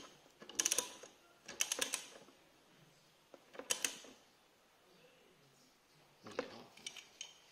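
Socket ratchet wrench clicking in several short bursts of rapid clicks with pauses between, as an ignition coil's mounting bolt is tightened.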